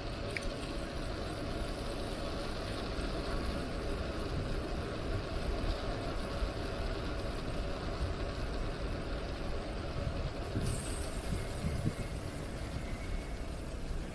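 Steady low rumble of wind and rolling noise from a moving bicycle. A faint high hiss joins about ten and a half seconds in.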